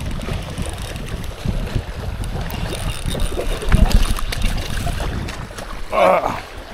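Wind buffeting the microphone over sea washing against breakwater rocks while a hooked fish is fought, with a louder splash about four seconds in as the fish leaps clear of the water.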